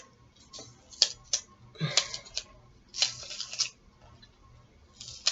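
Green onion being cut: a series of short, crisp clicks and crunches about a second apart, with a longer crunch about three seconds in.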